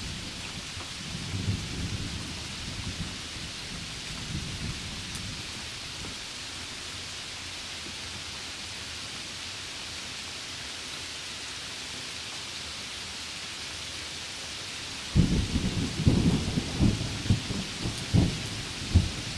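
Heavy rain falling steadily on leaves and garden, a constant hiss. Low thunder rumbles faintly in the first few seconds, and about fifteen seconds in a loud rolling rumble sets in and carries on in surges.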